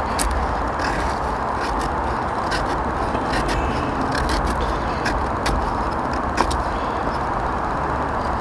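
Knife carving thin curls down a stick of dry wood to make a feather stick for kindling: a series of short scraping strokes at an uneven pace, one sharper about six and a half seconds in, over a steady low rumble.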